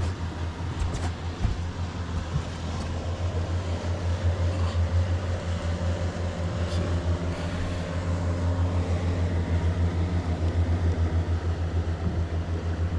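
A boat's outboard engine idling, a steady low throb with an even, fast pulse.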